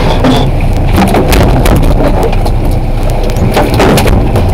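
Steady low rumble of the charter boat's engine running at sea, with wind buffeting the microphone and frequent sharp clicks and knocks on top.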